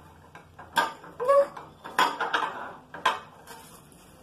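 Metal plates clinking against a glass table top as faces push at them, eating with no hands: three sharp clinks about a second apart.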